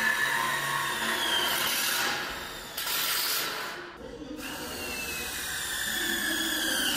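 A cordless drill/driver running with a high whine that sags slightly in pitch under load, breaking off and starting again abruptly about three and four seconds in.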